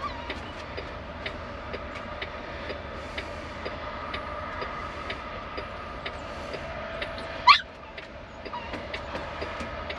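Rain ticking irregularly on a truck cab's roof and windshield over a steady in-cab hum. About seven and a half seconds in, one brief sound rises sharply in pitch and is the loudest thing heard.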